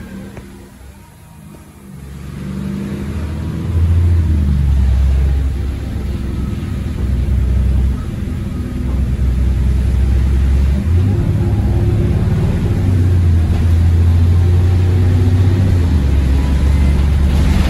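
A bus's diesel engine heard from inside the passenger saloon: quiet at first, it builds as the bus accelerates, and about eleven seconds in the automatic gearbox kicks down a gear and the engine runs hard under full throttle.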